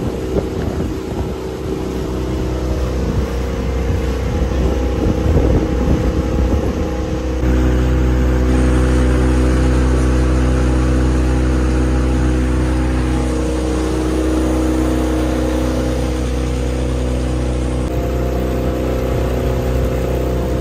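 Motorboat engine running steadily under way, with water rushing past the hull and wind on the microphone. The engine sound gets louder and fuller about seven seconds in.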